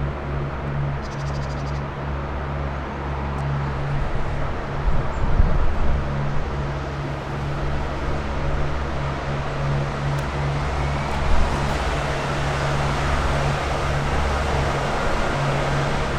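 Jet aircraft engine noise: a steady rush that builds in the second half, with a faint rising whine.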